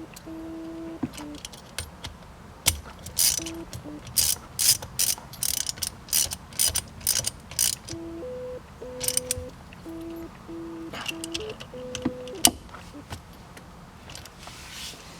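Hand ratchet clicking in repeated short bursts as the shifter's mounting bolts with lock washers are run in and tightened down.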